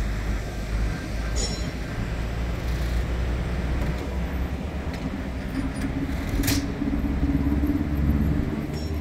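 Street traffic at an intersection: vehicle engines running with a steady low rumble, a nearer engine becoming louder about five and a half seconds in. A single sharp click about six and a half seconds in.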